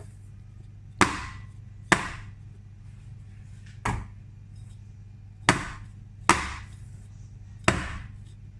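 Cake tins filled with chiffon cake batter being banged down on a kitchen counter to knock out air bubbles: six sharp knocks, roughly a second or two apart, one of them softer.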